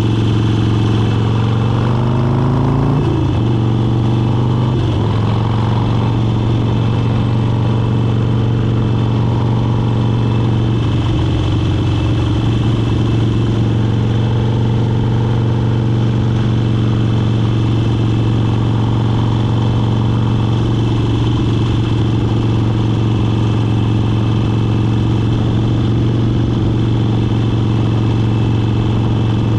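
Motorcycle engine running at a steady road cruise. Its pitch shifts a few seconds in, then holds even for the rest of the ride.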